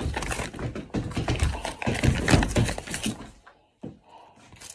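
Irregular thumps, knocks and rustling of someone moving close to the microphone, stopping about three and a half seconds in.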